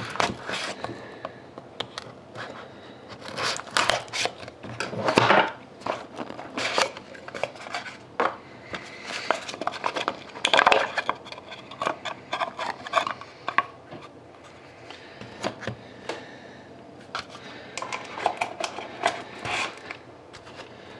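Hands opening a sealed trading card box: a knife slitting the paper seal band, then the box being handled and the cards slid out and set down in a stack, heard as irregular scrapes, taps and paper rustles.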